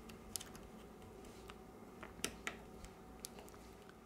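Scattered small, sharp clicks and taps of fingertips and steel tweezers working on an opened smartphone's board and its flex cable connectors. The two sharpest clicks come a little past two seconds in.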